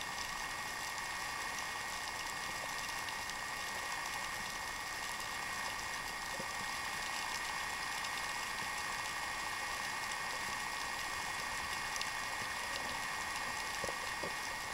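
Steady underwater hiss of the open sea, with faint scattered ticks and a thin high steady tone, as heard by a camera below the surface.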